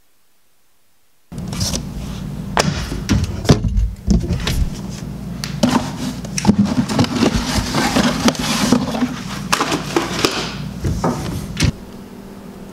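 Irregular knocks, clatters and rustling from kitchen utensils and handling, starting suddenly about a second in over a steady low hum, and easing off near the end.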